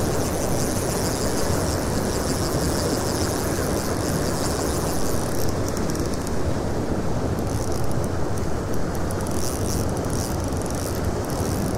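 Steady rushing noise of fast-flowing water at a warm-water discharge outlet.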